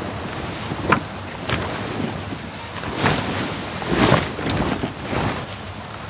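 Steady outdoor rushing noise with a string of short knocks and rustles, the loudest a little after three and four seconds in.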